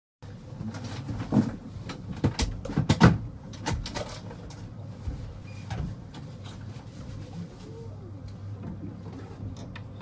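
A run of sharp knocks and thumps on a fibreglass boat deck, several in the first four seconds and loudest about three seconds in, over a steady low hum.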